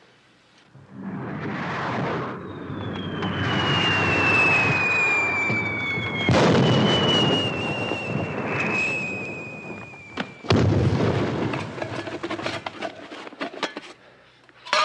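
Rockets whistling skyward with a slowly falling tone over a rushing hiss, then going off with a sharp bang about six seconds in and again about ten seconds in, followed by a spray of crackling pops.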